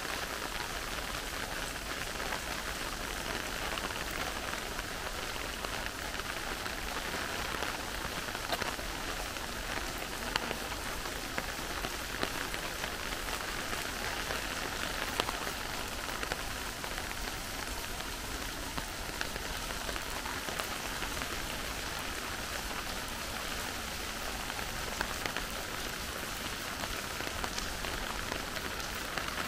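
Steady rain falling and pattering on surfaces, with scattered sharper drop ticks, a few of them louder.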